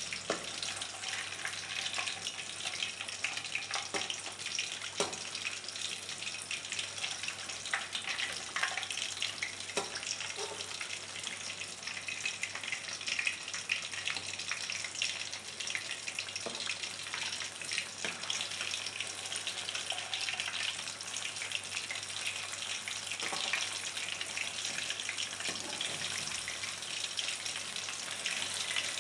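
Batter-coated nendran banana pieces deep-frying in hot oil: a steady, dense crackling sizzle, with a few sharper clicks here and there.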